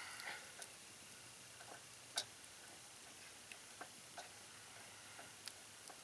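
Leatherman multitool can opener working around the rim of a can: a brief metallic scrape, then faint, irregular clicks, the sharpest about two seconds in.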